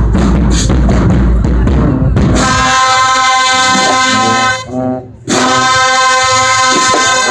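Marching band playing: drums beat out a steady pattern with heavy bass, then about two and a half seconds in the brass section comes in on a long held chord, breaks off briefly, and holds a second chord.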